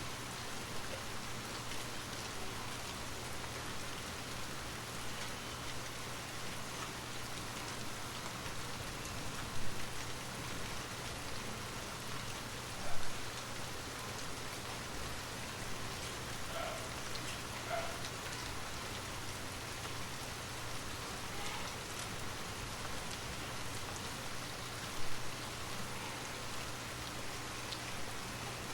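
Steady rain ambience with a constant low hum underneath. Three louder single taps or drops stand out: about ten seconds in, about thirteen seconds in, and near the end.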